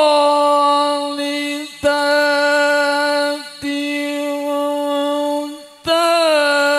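A man's voice reciting the Qur'an in the melodic tilawah style into a microphone, holding long steady notes, with brief breaks for breath about two, three and a half, and six seconds in.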